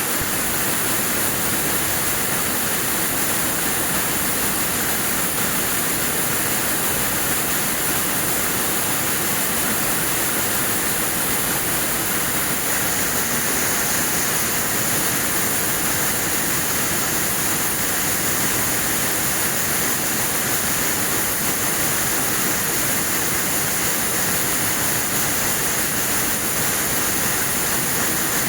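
Air-jet weaving looms running: a loud, steady, dense hiss that does not change or break.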